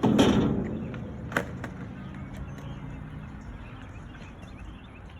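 Skateboard rolling on concrete: a loud clatter as it gets going, a sharp clack about a second and a half in, then the wheels' low rumble fading away.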